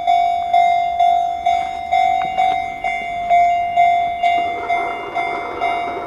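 Japanese level-crossing warning bell ringing, a soft ding repeating evenly about twice a second; its tone is very gentle. About four seconds in, the rushing noise of an approaching train rises beneath it.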